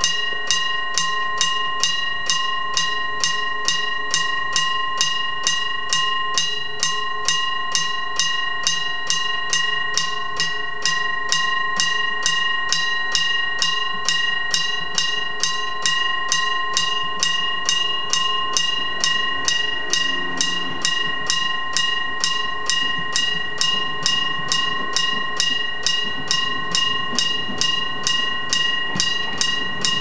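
Mechanical bell of an old bell-type railway level crossing ringing steadily, struck evenly a little over twice a second, each strike ringing on into the next. It is the crossing's warning that a train is approaching.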